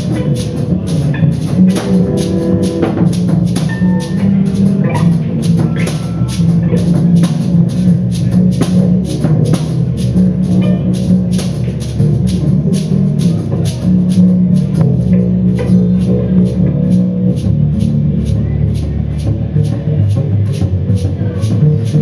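Live instrumental music: percussion keeps a steady pulse of about three strokes a second, with a high ticking on each stroke, over low held notes.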